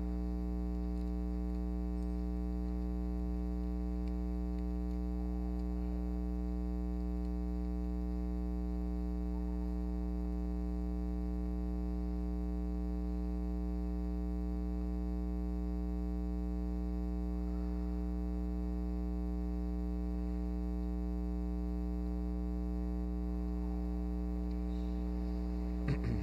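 Steady electrical mains hum with a stack of evenly spaced overtones, and a single soft knock near the end.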